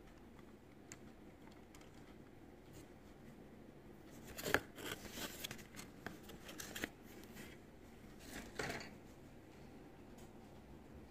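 A die-cast model bus handled on a tabletop: a sharp knock about four and a half seconds in, then scraping and rustling for about two seconds, and another short scrape about three-quarters of the way through.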